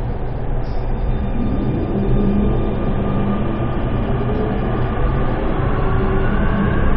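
Driverless metro train pulling out of a station and picking up speed, heard from inside the front car: a steady low rumble of wheels on rail with a motor whine that rises in pitch as it accelerates.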